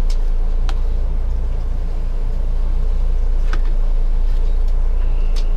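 A steady low mechanical hum, with a few faint sharp clicks of a knife blade touching a plate as a tomato is sliced.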